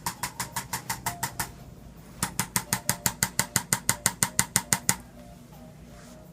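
Handheld chiropractic adjusting instrument firing rapid repeated thrusts at the first rib. It makes a run of sharp, even clicks, about seven a second, that stops about a second and a half in, then a second, longer and louder run from about two seconds in to about five.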